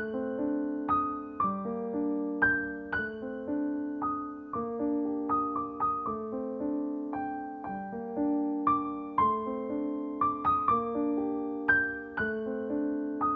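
Background piano music: single notes struck about every half second over held chords, each note fading after it is played.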